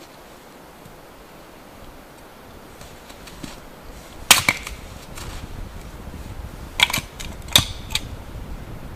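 Hatchet splitting kindling on a wooden chopping block: sharp cracks of the blade striking and splitting the wood. There is one loud strike about four seconds in and three more close together near the end.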